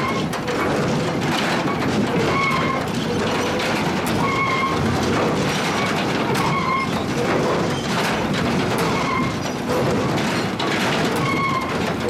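Sawmill step feeder and spiked log-infeed rollers running, a steady mechanical clatter of logs and steel. Short high squeaks recur every second or two, with occasional knocks.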